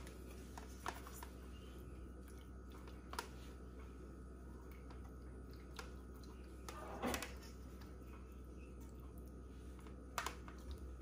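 Faint, scattered clicks and taps of hands handling grilled courgette slices and setting a stainless steel ring mould against an aluminium baking pan, with one slightly louder knock about seven seconds in. A steady low hum runs underneath.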